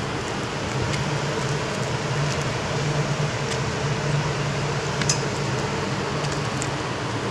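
Steady low hum and hiss of a ship's machinery, like ventilation fans running, with a few faint clicks.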